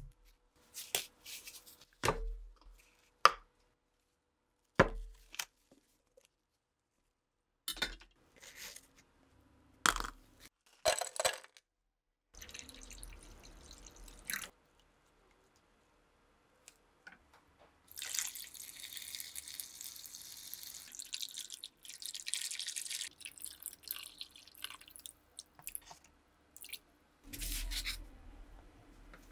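Knocks and taps of plastic and foam parts being set down, then water poured into a plastic measuring cup, a splashing stream lasting several seconds past the middle.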